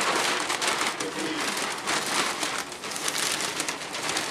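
Large sheet of paper rustling and crinkling as it is handled and folded, a steady crackle of many small crinkles.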